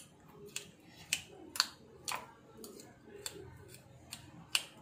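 A spoon crushing watermelon pieces in a glass tumbler, clinking sharply against the glass about every half second.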